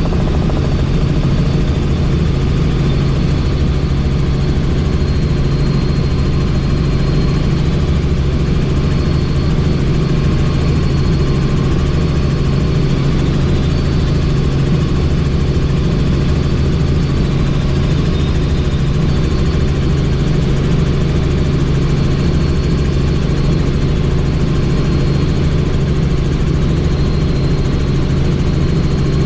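Helicopter in flight, heard from on board: the engine and rotor make a loud, steady drone with a faint high whine, unchanged throughout.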